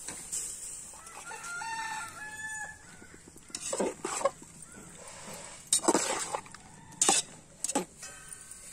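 A rooster crows once about a second in. From the middle onward a metal spoon scrapes and clanks loudly against the sides of a steel cooking pot several times as chopped jackfruit is stirred.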